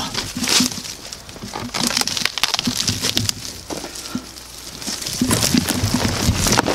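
Footsteps crunching and crackling through dry brush, twigs and fallen leaves, with branches brushing past; the rustling gets louder about five seconds in.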